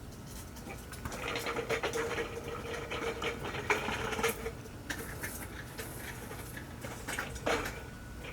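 Plastic and metal fuel pump parts being handled and pressed together: a run of small clicks and rattles for a few seconds, then scattered clicks and a sharper knock near the end.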